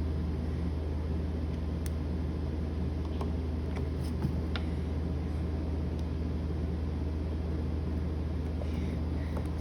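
Steady low hum, with a few faint clicks of a small screwdriver turning a switch-plate screw that is going in crooked.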